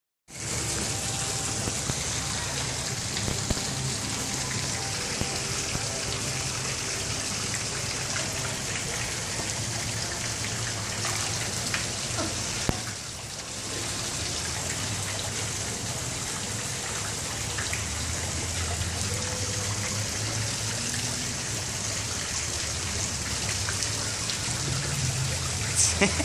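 A steady, even hiss like running water, with a low hum underneath; a few sharp clicks near the end.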